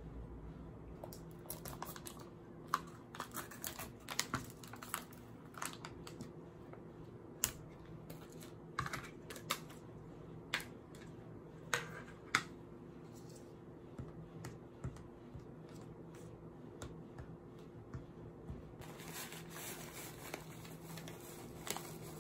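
Sharp clicks and taps of a metal fork against a plastic yogurt tub and lid as the yogurt is scraped and the tub opened and handled on a table. Near the end comes a rustle as a paper snack pouch is opened and granola poured out, over a faint steady hum.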